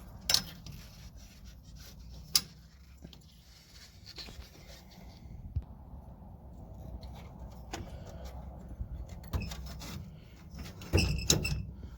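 Metal radiator brackets clinking and knocking as they are handled and slipped into place, a few scattered knocks and then a quick run of ringing clinks near the end.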